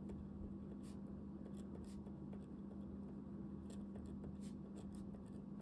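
Pen writing on paper: faint, irregular scratching of handwriting strokes, over a steady low hum.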